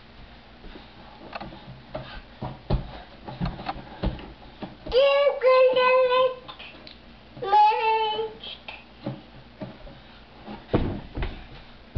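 A toddler's two long sung vocal calls a few seconds in: the first held on one pitch, the second starting higher and dropping. Light knocks and thumps come and go around them.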